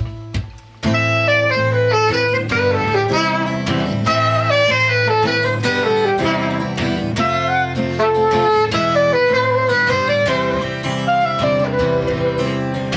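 Live saxophone and guitar playing an instrumental intro, starting about a second in after a few short knocks.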